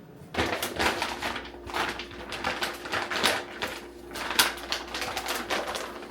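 A grocery bag rustling and crinkling as it is handled and folded up, in a dense, irregular run of crackles.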